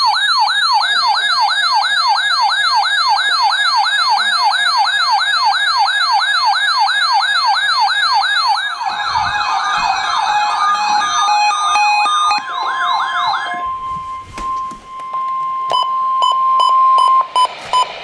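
Weather radio alert alarm: an electronic siren-like warble sweeping up and down about four times a second, overlaid by a second warbling alarm pattern about eight seconds in. About fourteen seconds in it gives way to a steady NOAA Weather Radio attention tone, broken by short gaps near the end, that precedes a tornado watch message.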